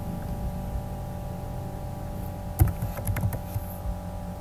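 Steady low electrical hum, then a short run of computer keyboard keystrokes, about five quick clicks, starting about two and a half seconds in.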